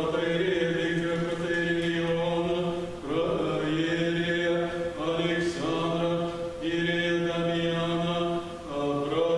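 Orthodox liturgical chant: voices singing long, sustained phrases over a low held note, with short breaks between phrases about three, five and eight and a half seconds in.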